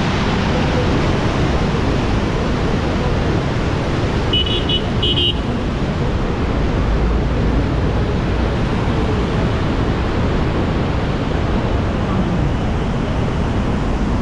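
Floodwater rushing through an open sluice gate, a steady loud churning of water. About four seconds in there are two short, high horn toots.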